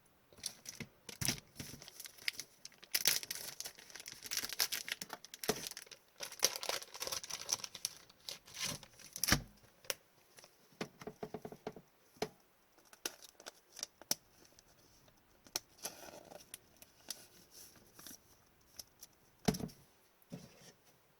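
Trading cards being handled and slid into plastic sleeves and holders: crinkling plastic and paper rustling with scattered sharp clicks and taps, busiest a few seconds in.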